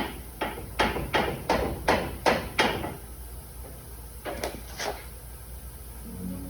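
Hammer blows: eight sharp strikes at about three a second, then after a pause two more.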